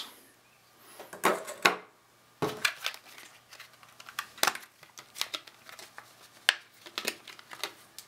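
Irregular sharp clicks, taps and crinkles of hard plastic being handled, over a faint steady low hum.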